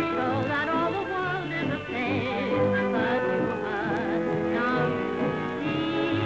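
A woman singing with a strong vibrato over a small dance band's accompaniment, in a 1930s-style popular song.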